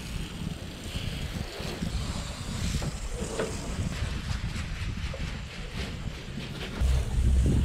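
Wind buffeting the microphone in a low rumble, with the steady hiss of a garden hose spraying fresh water onto a yacht's hull. The wind gets much louder near the end.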